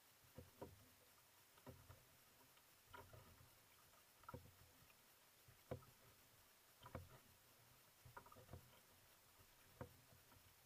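Faint strokes of a single-bladed paddle in water, a short soft splash with each stroke, about one every second and a quarter, in a steady rhythm.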